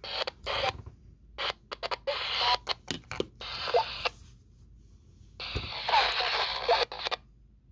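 Midland SpeakEasy F-20 FRS walkie-talkie's speaker receiving: bursts of static with garbled voice fragments, each cutting in and out abruptly as the receiver's squelch opens and closes. Four bursts, the last and longest ending about seven seconds in.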